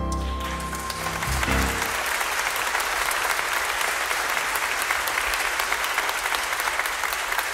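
The song's last held notes die away in the first two seconds as applause rises, then steady applause from the audience and choir.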